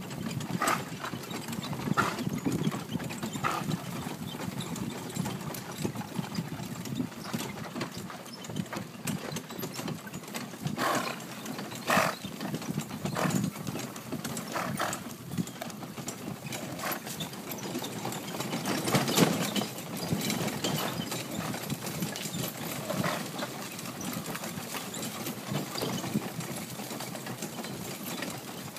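A four-in-hand team of ponies in harness, their hooves clip-clopping irregularly on a dirt track over the steady rumble and rattle of the carriage rolling along, with a few louder knocks.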